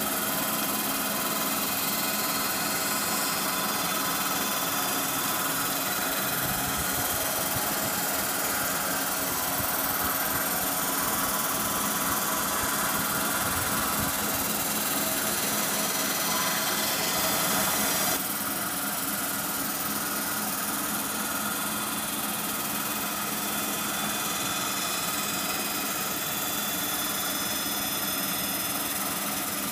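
Crankshaft grinding machine grinding the journals of a BMW M3 E36 crankshaft under a flood of coolant: a steady high hiss of the wheel on the steel over a hum of several steady machine tones. About two-thirds of the way through the sound abruptly gets a little quieter and duller.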